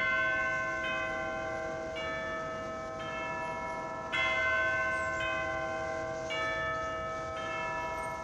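Church bells ringing: a series of single strikes on bells of different pitches, about one a second, each ringing on under the next, with the loudest strikes at the start and about four seconds in.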